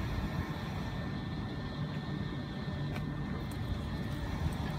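Electric multiple-unit train standing at the platform, its onboard equipment running with a steady low hum and a faint steady high whine.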